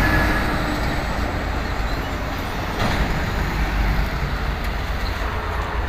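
Road traffic with heavy trucks passing: a steady low rumble of engines and tyres, a little louder from about three seconds in.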